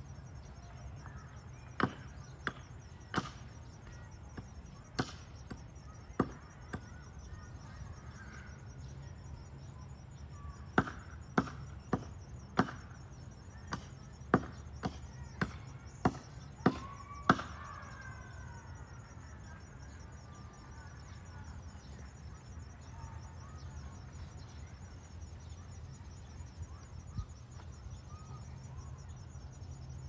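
Sharp knocks of a hand tool striking wood at the base of a tree, about eighteen blows in two runs: a few spaced-out blows, then after a pause a quicker series of about a dozen at roughly two a second, stopping about seventeen seconds in.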